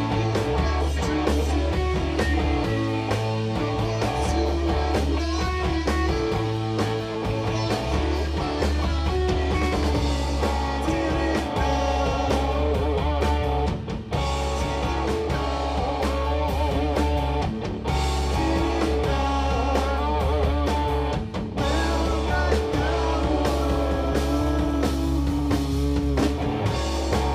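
Live rock band playing through a club PA: electric guitar over a drum kit and a heavy bass line, steady and loud.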